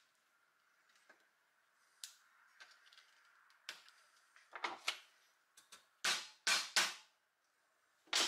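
A metal hub cap clicking as it is fitted onto a toy's wheel axle, then a soft-faced mallet tapping it three times in quick succession to seat it, with one more knock near the end.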